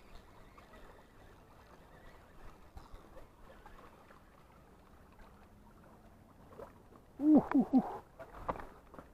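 Faint wash of sea water against a rocky shore, with a short voice-like sound about seven seconds in.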